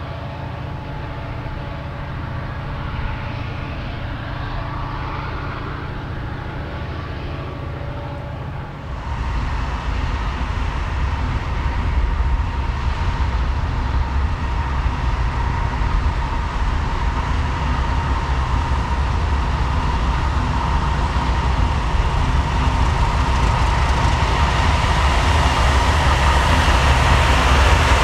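Norfolk Southern diesel freight locomotive hauling autorack cars, its engine droning steadily. About nine seconds in the sound changes abruptly to a louder, heavier rumble that keeps building as the train draws near.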